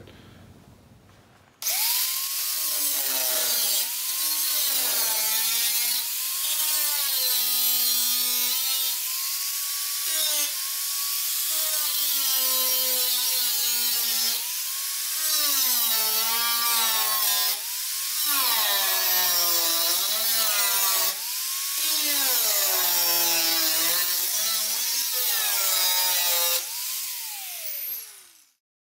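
Electric angle grinder cutting through the rusted sheet-steel outer body skin of a 1946 Willys Jeep tub, starting about two seconds in. Its whine dips and rises in pitch again and again as the wheel bites into the metal and eases off, and near the end it winds down with a falling whine before stopping.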